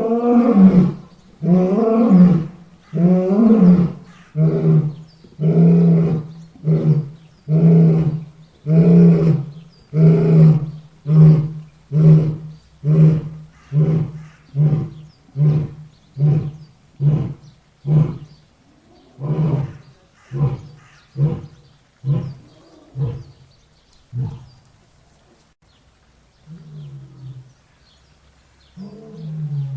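Lion roaring: a few long, deep calls break into a run of shorter grunts, about one a second, that come quicker and grow fainter until they die away about two-thirds of the way through. Two faint grunts follow near the end.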